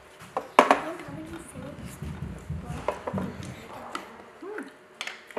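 Sharp clicks and knocks of things handled on a tabletop, such as chopsticks, a plate and a juice carton, the loudest about half a second in. Between them there is a low, muffled sound.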